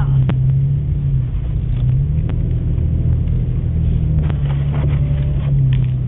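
Toyota FJ Cruiser's V6 engine and drivetrain running at a steady low speed through deep snow, heard inside the cabin as a continuous low drone, with a few faint knocks.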